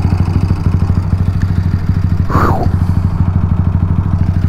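Honda Grom's big-bore single-cylinder engine running steadily under load at cruising speed, its exhaust pulsing evenly, with a mechanical chatter that the rider puts down to the four-valve head since the valves check good. A brief higher-pitched sweep comes about halfway through.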